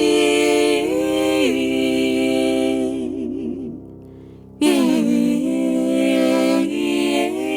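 A woman's voice run through a harmonizer, singing held chords in which several pitches move together in parallel. It breaks off about four seconds in and starts again a moment later.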